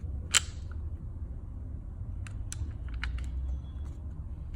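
Clicks and taps from a small hard object being handled: one sharp click about half a second in, the loudest, then a cluster of lighter clicks about two to four seconds in. A steady low hum runs underneath.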